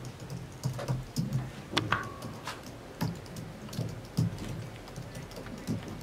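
Typing on a slim white computer keyboard: quick, uneven key clicks, with a short steady tone about two seconds in.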